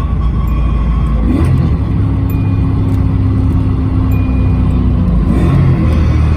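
Toyota 1UZ 4.0-litre V8 running in a Nissan S13 Silvia, its note climbing about a second and a half in, holding steady for a few seconds, then climbing again near the end.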